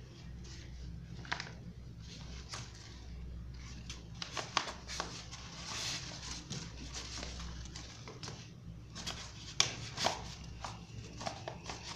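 A printed fabric carrying bag being handled: cloth rustling and rubbing, with scattered light clicks and one sharper click about three quarters of the way through, over a faint low hum.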